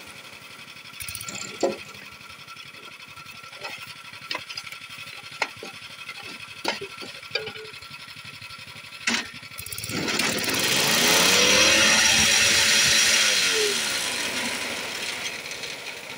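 Concrete block machine: a few scattered knocks and scrapes as the concrete mix is worked into the mould, then about ten seconds in the machine's motor starts and runs loudly for a few seconds, its pitch rising, holding, then falling as it winds down.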